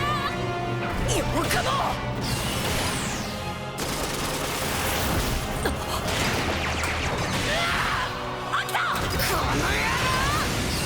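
Anime robot-battle soundtrack: dramatic background music under fight sound effects, with whooshes, crashes and impacts. Warbling electronic tones sound at the start and again about two thirds of the way through.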